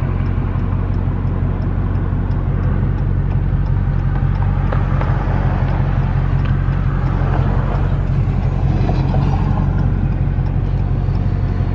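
A car's engine and road noise making a steady low drone, with no revving or change in pitch.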